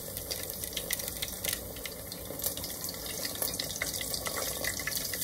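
Tempura frying in deep oil at about 180 °C: a steady sizzle dotted with many small crackles.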